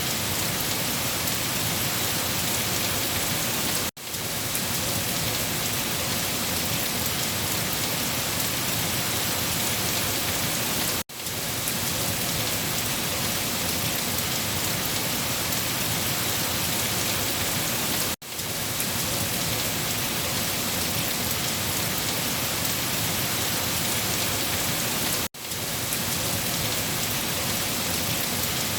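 Steady, dense rain falling on a surface, an even hiss of drops. It cuts out briefly and comes straight back four times, about every seven seconds.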